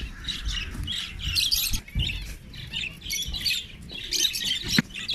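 A flock of caged budgerigars and other small cage birds chirping and chattering all at once in a dense, continuous twitter. A short, sharp sound stands out near the end.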